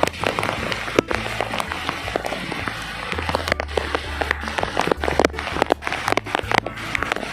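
Heavy rain, with many sharp drop hits close to the microphone and a low rumble of wind buffeting the microphone.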